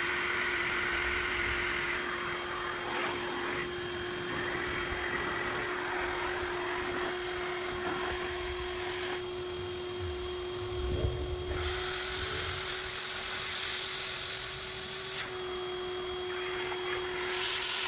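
Electric air pump running steadily, its motor humming as it blows air through a hose into a vinyl inflatable zebra hopper. The rush of air grows brighter and louder for a few seconds past the middle.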